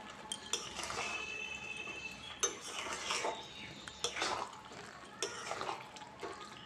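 Metal spatula stirring a thick curry of pointed gourd and prawns in an aluminium wok, with irregular scrapes and clinks against the pan and a brief metallic ring about a second in.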